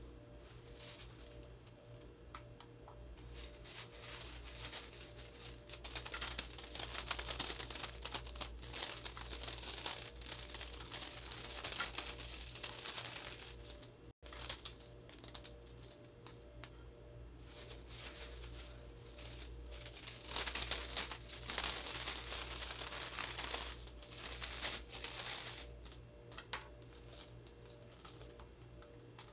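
Crisp fried samosa-sheet chips being crumbled by hand over a dish of chana chaat: dense crackling crunches in two long spells, over a steady low hum.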